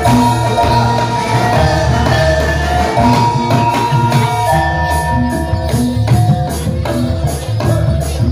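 Live jathilan (kuda lumping) accompaniment music: pitched percussion rings out held notes over repeated low drum beats. Sharp jingling strikes crowd in during the second half.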